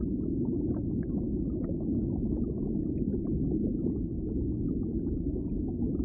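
Muffled underwater ambience: a steady low rumble of water, with faint small pops scattered through it.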